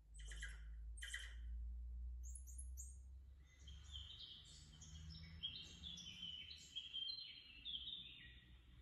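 Recorded birdsong played through a TV's speakers: a string of chirps and short whistled notes, stepping in pitch, starting about two seconds in. Two short squeaks from the mouse scene come in the first second, over a low steady hum.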